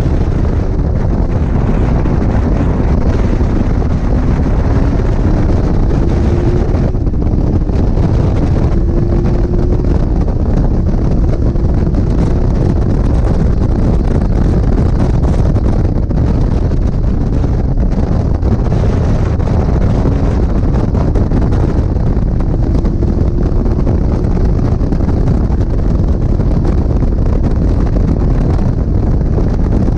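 Heavy wind buffeting on the microphone of an open-cockpit Locost 7 at speed, with the car's engine note underneath, rising in pitch as the car accelerates.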